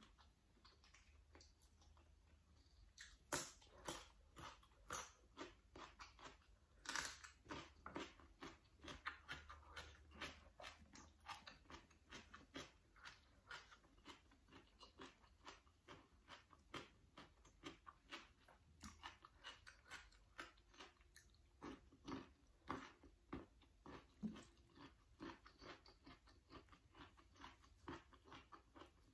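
A person chewing crisp raw vegetables, starting with a bitten piece of cucumber, close to the microphone: a long run of crunches, loudest about three and seven seconds in.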